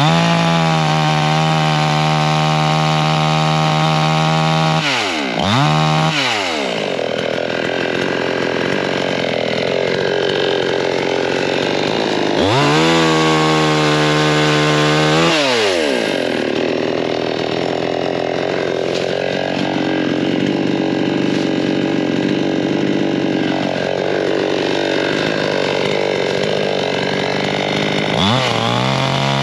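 Two-stroke gas chainsaw running at high revs while cutting through a small tree trunk. Its pitch drops and climbs again several times as it bites into the wood and is revved back up.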